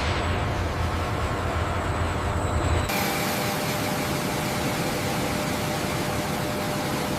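Jet aircraft engine running steadily on the ground: an even hiss with a faint steady hum. About three seconds in the sound changes abruptly, the low rumble dropping away and the hiss growing brighter.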